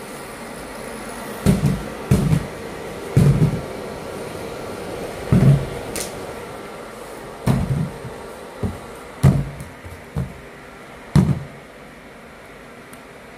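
Induction foil sealing machine running with a steady hum from its cooling fans and conveyor. Over it come about eight dull thumps and knocks at uneven intervals, some doubled.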